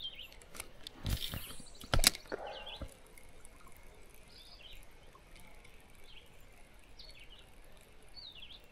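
A cast with a light spinning rod: a rising swish about a second in, then a sharp snap and a small splash of the lure landing in the creek about two seconds in. Small birds chirp on and off throughout.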